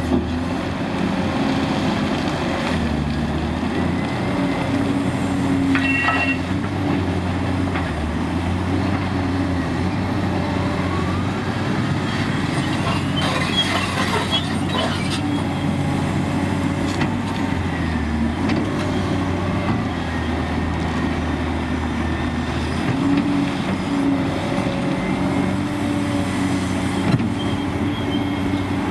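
Cat 385C hydraulic excavator digging: its diesel engine runs steadily, the engine note stepping up and down as the hydraulics take load, with a few clanks and scrapes of the bucket in the dirt around the middle.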